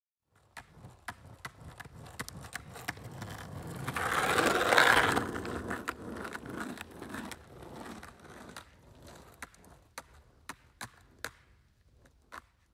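Title-animation sound effect: a rushing noise that swells to a peak about five seconds in and then fades, with irregular sharp clicks scattered throughout.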